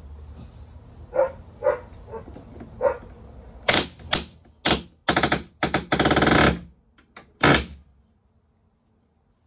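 Pneumatic palm nailer driving nails into wood: a few light knocks, then several loud bursts of very rapid hammering, the longest lasting over a second, stopping about eight seconds in.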